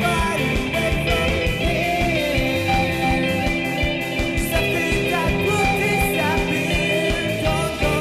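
Indie rock song: electric guitars over a steady drum beat.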